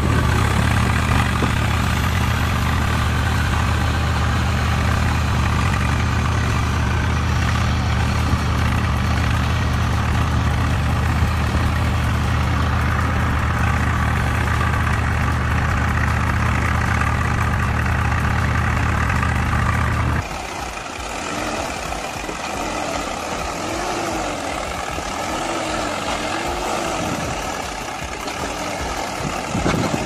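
Steady low engine drone, like a tractor idling, heard with a remote-control model tractor. About twenty seconds in it cuts abruptly to a quieter engine sound whose pitch wavers up and down.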